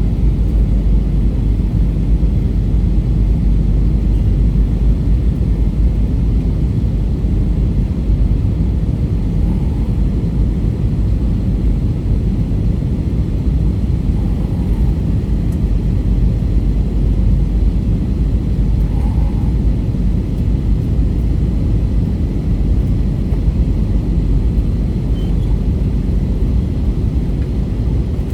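Steady, loud, low rumble of an airliner cabin in flight, engine and airflow noise. A few faint short sounds rise above it, about five seconds apart, in the middle of the stretch.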